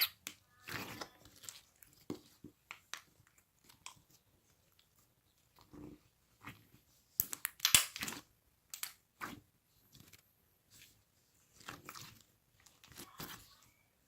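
Slime being squeezed and pressed by hand, giving scattered crackling clicks and squishes with short gaps, and a denser burst of louder crackles about halfway through.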